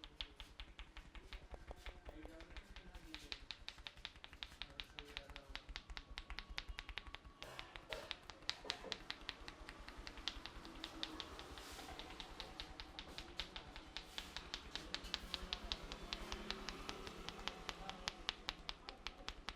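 Barber's hands rapidly tapping and chopping on a person's head during an Indian head massage: a fast, even run of many sharp taps a second.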